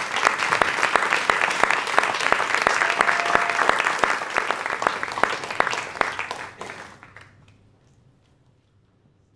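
Audience applauding, the clapping fading out about seven seconds in.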